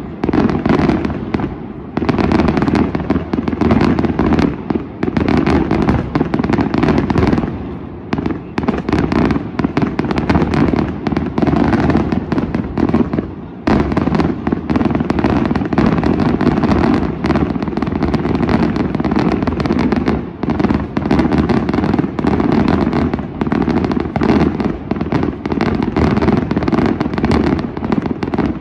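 Daytime fireworks display: a dense, nearly unbroken barrage of rapid bangs from shells bursting into white and coloured smoke, with a short lull about 13 seconds in.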